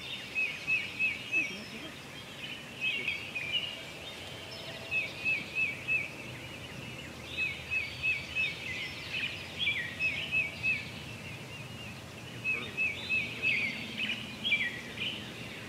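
Songbirds singing: one bird repeats a quick run of five or six short, high notes every couple of seconds, with other bird calls in between.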